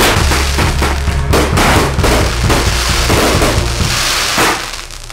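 Fireworks bursting and crackling in rapid, dense pops over background music with a steady bass, which drops out about four seconds in.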